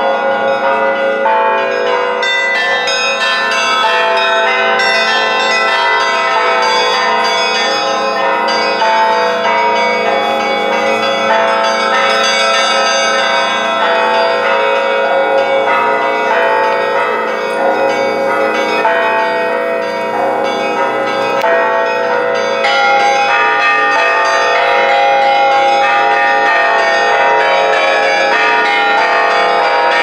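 Russian Orthodox church bells ringing a festive peal: many bells of different sizes struck in quick, overlapping rhythms over the lingering tones of the larger bells, without a pause.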